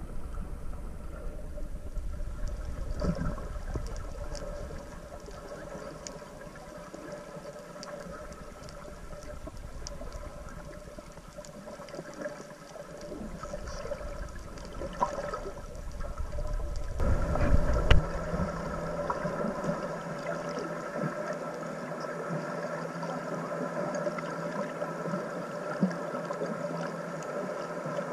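Underwater sound heard through a camera held by a snorkeler: water rushing and sloshing past the housing, over a steady hum of several tones. About two-thirds of the way through the rushing swells briefly and the hum grows louder.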